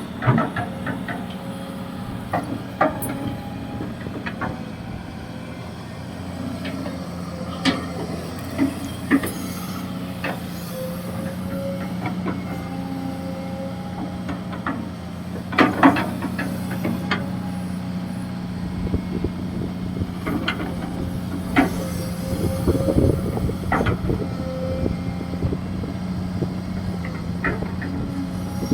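Kobelco SK200-6 Super hydraulic excavator working: its diesel engine runs steadily under load, with sharp clanks from the digging gear every few seconds. The engine note grows louder and deeper about two-thirds of the way through.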